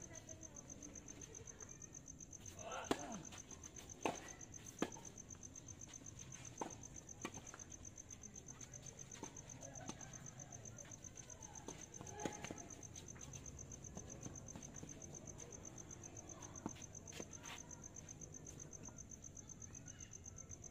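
Tennis ball hit back and forth with rackets in a rally: several sharp pops at uneven spacing, the loudest about three to five seconds in. Under them runs the steady, high, pulsing chirr of crickets.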